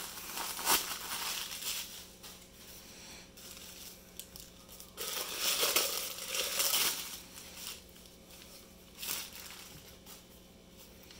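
Packing paper and plastic wrap crinkling and crumpling as it is pulled off a drinking horn by hand. The rustling comes in uneven bursts: one near the start, the longest and loudest about halfway through, and a short one near the end.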